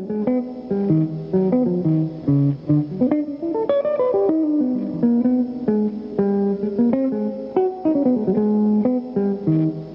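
Clean-toned hollow-body electric guitar playing a quick single-note jazz line, the notes picked one after another and moving up and down.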